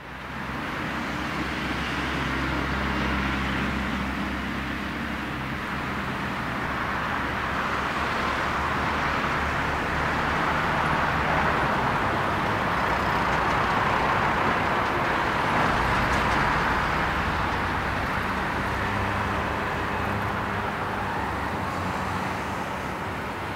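Boeing 767-200ER's twin jet engines at takeoff power: a steady rushing jet noise with a low hum underneath, heard through the takeoff roll and climb-out. It grows a little louder about halfway through as the aircraft comes nearer, then eases slightly near the end.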